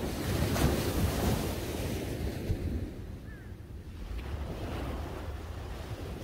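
Small waves breaking on a sandy beach and washing up the shore, loudest in the first two seconds, with a second, softer wash about four seconds in. A low rumble of wind on the microphone runs underneath.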